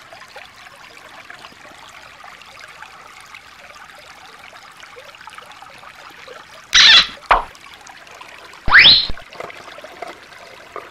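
Shallow stream water trickling faintly over stones. About seven seconds in come a loud, sudden falling swoop and a short burst, then a rising swoop near nine seconds.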